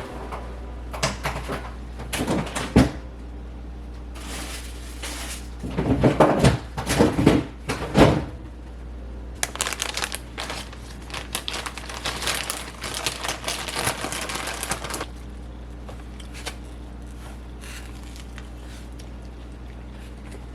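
Kitchen handling sounds: knocks and clatters of things being moved, then a long stretch of crinkling and rustling like packaging being handled, over a steady low hum.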